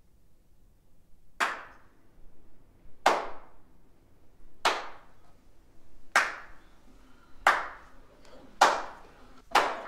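A slow hand clap in a reverberant room: single sharp claps about every second and a half, seven in all, coming a little faster toward the end.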